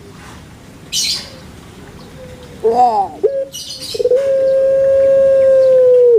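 A kept dove cooing: a short rising-and-falling coo about halfway in, then one long drawn-out steady coo that sags at the end. Brief rustling noises about a second in and just before the long coo.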